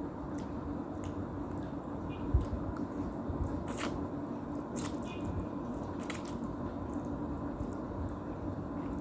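Close-up wet chewing and lip smacks of someone eating instant noodles, with a few sharper smacks around the middle, over a steady faint hum.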